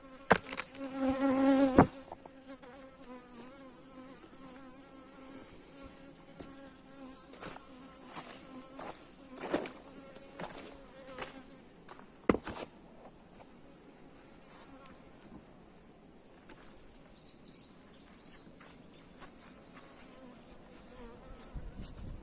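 Honeybees buzzing, one flying close by loudly in the first two seconds, then a fainter steady hum. A few sharp knocks sound through it.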